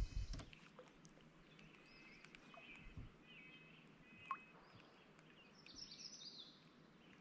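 Faint birdsong: a few scattered short chirps over quiet open-air background, with a couple of soft clicks.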